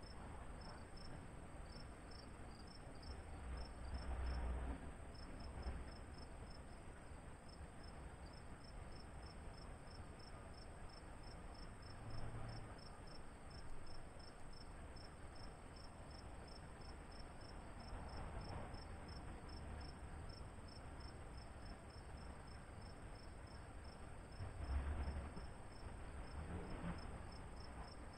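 Cricket chirping steadily in a quick even pulse, about three chirps a second, over a faint steady high insect drone. A few low rumbles swell and fade, the strongest near the end.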